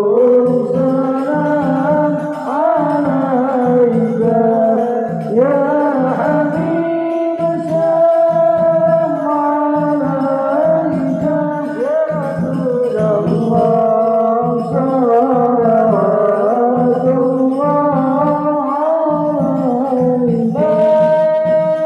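Singing with musical accompaniment: a voice sings an ornamented melody with gliding notes over steady sustained low notes, ending on a long held note.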